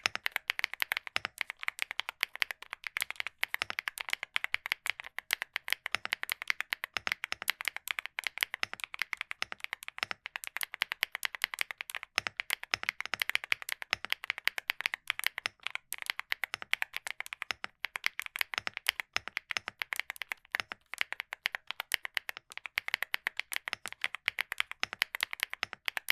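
Fast, continuous typing on a mechanical keyboard: a rapid stream of key clicks and clacks, broken by a few short pauses between words and lines.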